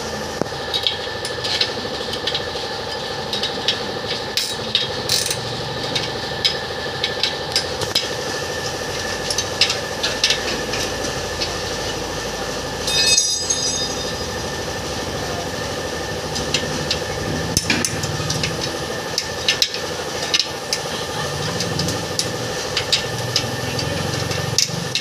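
Light, irregular metal taps and clinks of hand tools working a dented motorcycle wheel rim as it is straightened and trued, with a short metallic ringing about halfway through. An engine runs steadily underneath.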